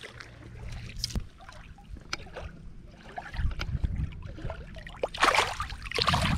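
Shallow water splashing as a released white bass kicks away from the hand: one loud splash about five seconds in and another about a second later.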